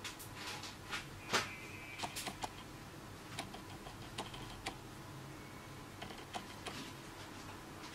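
Irregular light clicks and taps over a faint steady room hum, the loudest about a second and a half in.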